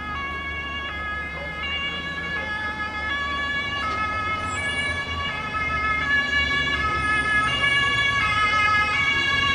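Fire engines' two-tone sirens (German Martinshorn), more than one sounding at once, each switching between a high and a low note about every three-quarters of a second, with diesel engine rumble underneath. The sirens grow louder as the convoy approaches and are loudest near the end.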